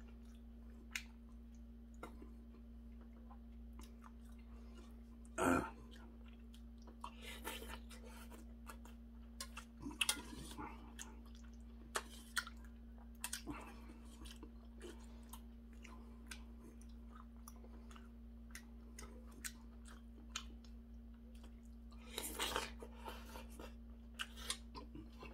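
Eating sounds from a bowl of seonji gukbap: chewing, with scattered small clicks of a metal spoon against a stainless steel bowl and a few longer, louder mouthfuls, the loudest a little over five seconds in and near the end. A steady low hum runs underneath.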